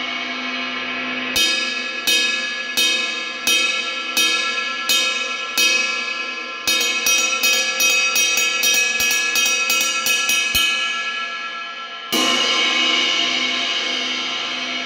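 24-inch 1988 Paiste Sound Creation New Dimension Bell Ride played with a wooden drumstick. A short run of single strokes comes about every two-thirds of a second, then a quicker ride pattern, then the cymbal rings on. Late on, one more strike brings up a full, lasting wash.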